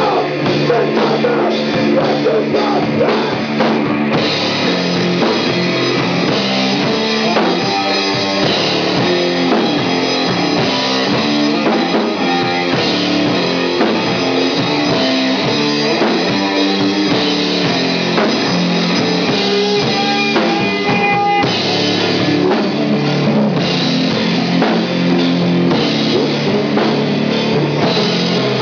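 Stoner rock band playing live: electric guitar over a drum kit, with the cymbals coming in harder about four seconds in, in a passage without vocals.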